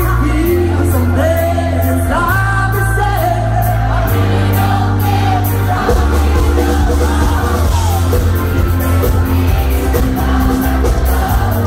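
Live band playing a pop-rock song with women singing, over heavy bass notes that change every second or two and a steady drum beat.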